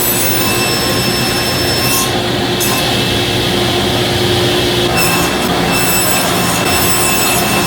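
Woodworking power tool running steadily, cutting wood: a loud, dense noise with a steady whine.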